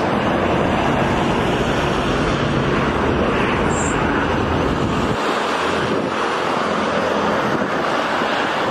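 Loud, steady rush of wind on the microphone, with a low rumble in it that drops away about five seconds in.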